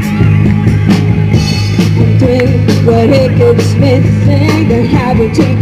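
Rock band playing an instrumental passage: regular drum-kit strikes over a steady low bass, with a wavering melodic lead line on top.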